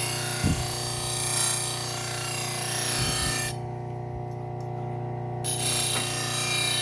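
Bucktool low-speed sander running with a steady hum while a kitchen knife blade is ground against it in a steady grinding rasp. The grinding stops for about two seconds in the middle as the blade is lifted off, then resumes while the motor keeps running.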